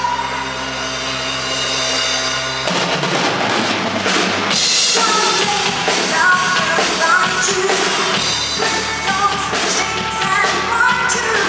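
Music with a drum kit: held chords for the first couple of seconds, then drums and a melody come in.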